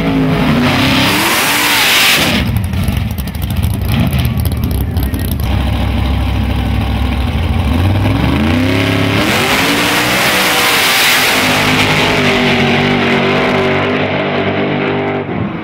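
Drag-racing cars' engines at full throttle, revving hard with the pitch rising as they accelerate, with a rough crackling stretch early on and steadier engine tones later.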